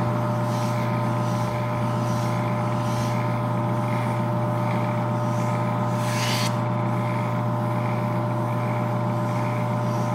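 Speedaire air compressor running steadily with a strong electric motor hum, and a brief hiss about six seconds in.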